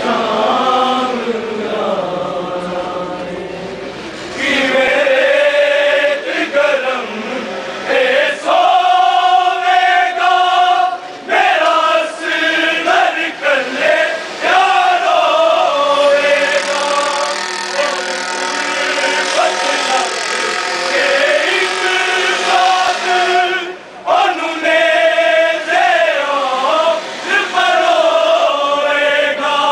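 Male voices chanting a mourning lament (noha) in a slow, drawn-out melody, with long held notes and a few short breaks between lines.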